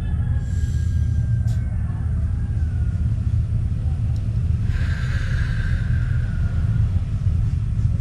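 A steady low rumble throughout. About five seconds in, a brief hiss with a thin, slightly falling whine rises over it.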